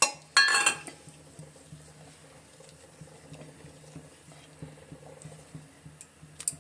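A metal spoon knocking and clattering against a cooking pot, then faint stirring with light taps as cornflour slurry is mixed into simmering soup. A sharp knock comes at the start, a brief clatter just under a second in, and another knock near the end.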